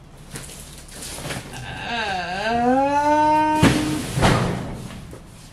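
A person's voice drawing out one long wordless note that dips and then rises and holds for about two seconds. A sharp knock cuts it off, with a faint steady low hum underneath.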